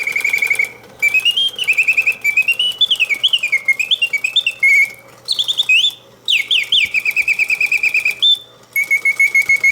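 1940s French Bontems singing birdcage's mechanical bird, its bellows-driven whistle singing a warbling song of rapid trills that rise and fall in pitch, broken by several brief pauses.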